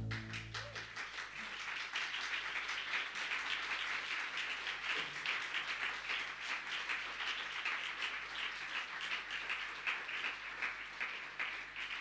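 Audience applauding: a dense, even patter of many hands clapping that begins as the music cuts off and starts to die away at the very end.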